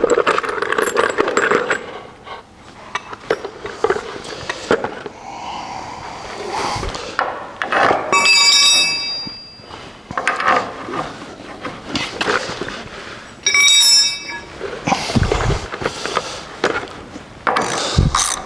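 Metal work noise at steel truck frame rails: hand tools and hardware knocking and clinking against the steel, with two short bursts of bright metallic ringing about eight seconds in and again some five seconds later, and a couple of dull thuds near the end.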